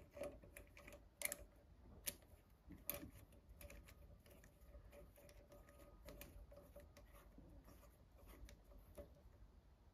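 Near silence broken by faint, scattered metallic clicks and ticks of hand tools working in a freshly tapped exhaust stud hole, a few sharper ones in the first three seconds.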